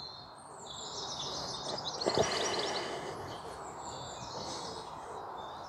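Songbirds chirping and singing in quick repeated high notes over steady outdoor background hiss.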